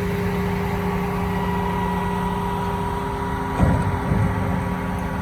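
Combine harvester running at a steady pitch, a constant hum with a whine on top. There are two low thumps about three and a half and four seconds in.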